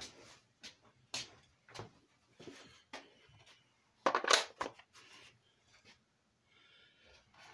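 Irregular knocks and rustles of tools and wood being handled on a workbench, with a louder scraping burst about four seconds in.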